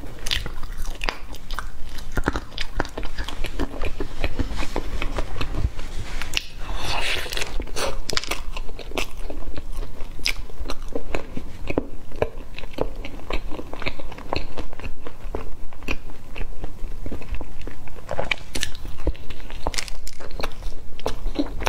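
A person biting into and chewing a soft glazed cake doughnut close to a clip-on microphone, with many small mouth clicks throughout.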